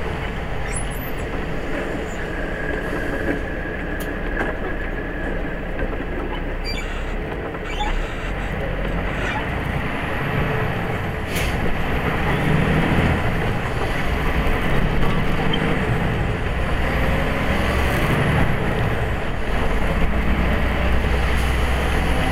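A large vehicle's engine and tyres on wet road, heard from inside the cab while driving. The engine grows louder and stronger about halfway through as it pulls away, with one sharp click just before.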